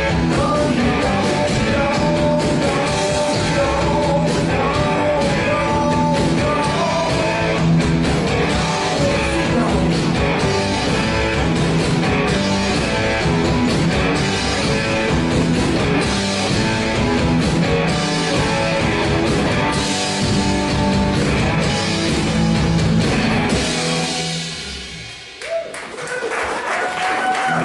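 Live rock band playing, with a singing voice over electric guitar, bass and drum kit. About 24 seconds in the band drops away for a moment, then the guitar comes back in strumming.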